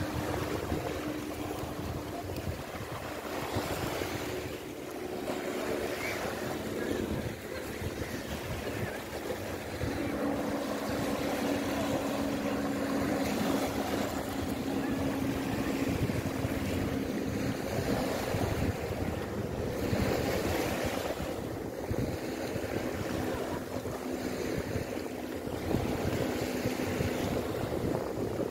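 Small waves of the Gulf of Finland lapping and breaking on a sandy, stony shore, with wind buffeting the microphone. A steady low hum comes and goes over the wash.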